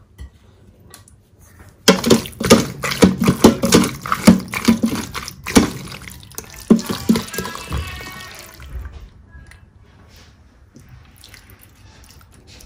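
A serving spoon stirring and scooping thick, saucy penne in the stainless steel inner pot of an Instant Pot: wet squelching with quick clicks and scrapes of the spoon against the pot. It starts about two seconds in and dies away a few seconds before the end.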